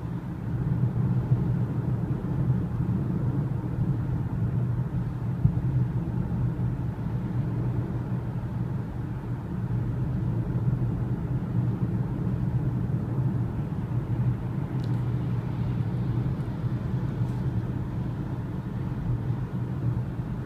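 Steady low rumble of tyre, road and engine noise heard inside the cabin of a BMW 335i Gran Turismo cruising at constant speed. It stays even throughout.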